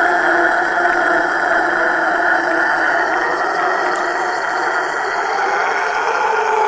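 A man's harsh, rasping scream: one long, rough cry held without a break.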